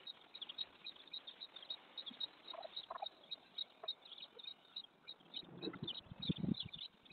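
Small birds chirping in many short, high, quickly repeated chirps, heard through a security camera's microphone that cuts off the top of the sound. A run of low dull thumps comes in a little past the middle and is the loudest part.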